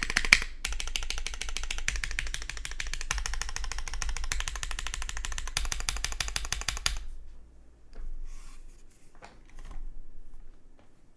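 Fast typing on a plateless JJWKB Integral mechanical keyboard with lubed, filmed Cherry MX2A Orange switches and GMK keycaps: a dense stream of keystroke clacks that stops about seven seconds in. A few scattered softer sounds follow.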